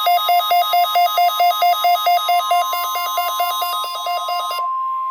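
NOAA Weather Radio's 1050 Hz warning alarm tone, a steady high tone, with the weather radio receiver's own alert beeping rapidly over it, about five beeps a second. The beeping stops about four and a half seconds in while the steady tone carries on; this is the alarm tone sent during the required weekly test.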